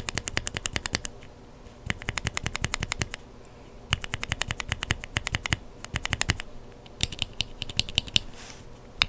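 Mechanical keyboard switches with lubed Kailh Burgundy linear stems, pressed rapidly. They clack in quick runs of about ten strokes a second, with short pauses between the runs.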